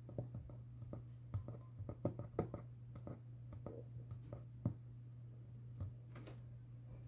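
Scattered light clicks and taps of hands handling small tools and parts, over a steady low hum.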